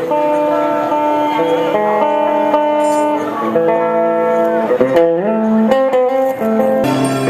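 Music: a slow melody of held notes, some sliding into the next.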